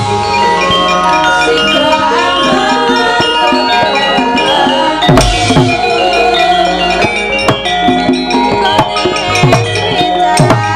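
Javanese gamelan ensemble playing: bronze metallophones ring steady, interlocking tones, and kendang drum strokes with a dropping pitch fall every few seconds, as accompaniment to a wayang kulit fight scene.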